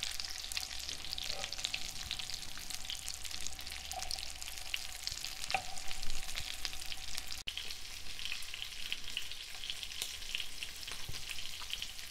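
Shrimp croquettes shallow-frying in olive oil: a steady, dense crackling sizzle. A spoon knocks against the pan a few times as they are turned.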